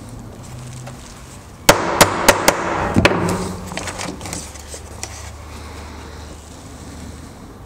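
A hammer striking a steel hollow punch through a paper template into a wooden block, about five quick sharp blows starting a little under two seconds in, punching out a bolt hole. Paper rustles and is handled afterwards.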